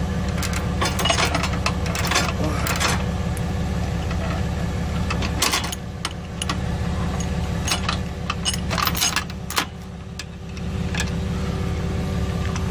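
Steel safety chain clinking and rattling as it is hooked around a car's lower control arm (A-arm) at a tow truck's wheel-lift, over the steady low hum of the truck's idling engine. The clinks come in clusters, most of them in the first few seconds and again past the middle.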